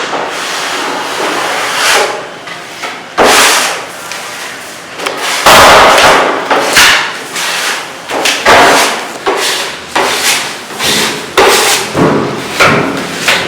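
Repeated heavy knocks and thuds of manual construction work, irregularly spaced about a second apart, each with a short ringing decay.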